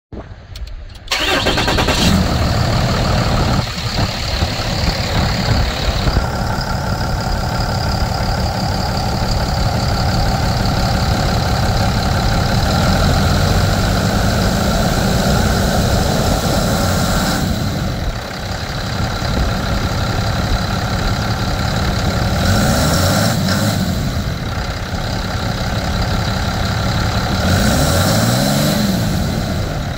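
2012 Dodge Ram 5500's 6.7-litre Cummins turbo-diesel straight-six starting about a second in, then idling steadily. It is briefly revved up and back down twice near the end.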